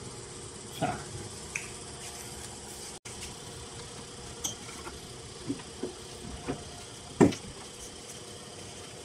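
Scattered plastic knocks and clicks as a Toyota Innova's tail-lamp housing is handled and pushed back into its place in the car body, the loudest knock about seven seconds in. A steady faint hum runs underneath.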